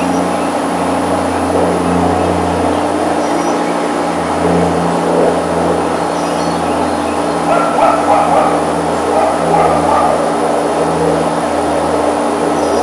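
A dog yipping and whimpering over a steady, low engine-like drone.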